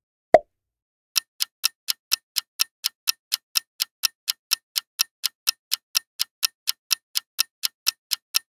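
Clock-ticking sound effect for a quiz countdown timer: sharp, even ticks, about four a second, starting about a second in. A single short pop comes just before them.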